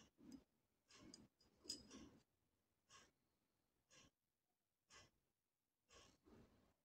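Near silence, with faint, brief rustles and clicks about once a second from hands handling a small metal vise head fitted with coil springs.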